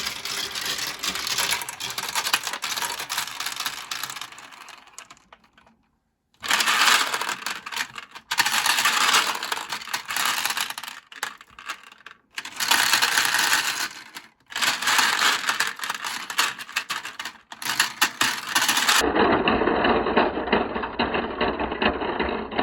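Marbles rolling and clattering down a plastic marble-run slope in a dense rattle. The rattle dies away, then comes back in several separate runs with short gaps between them. Near the end a duller, muffled steady sound takes over.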